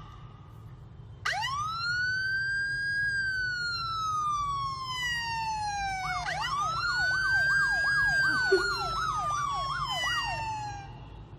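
Siren wailing: a quick rise in pitch then a slow fall lasting several seconds, followed by a second wail with a fast up-and-down yelp, about two and a half cycles a second, sounding over it.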